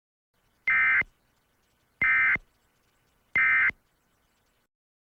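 Three short Emergency Alert System end-of-message (EOM) data bursts, each about a third of a second long with about a second between them: the digital code that closes the alert.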